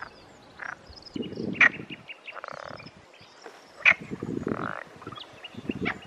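A chorus of Perez's frogs (Pelophylax perezi) croaking in bursts a couple of seconds apart, with some sharper, louder calls in between.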